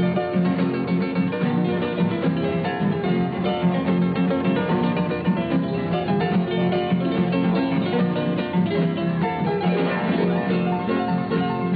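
A harp and two acoustic guitars playing together in a lively run of plucked notes, with the guitars strumming under the harp's melody.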